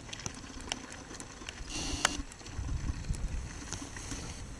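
Wind rumbling on the microphone, swelling about two and a half seconds in, with several sharp clicks scattered through.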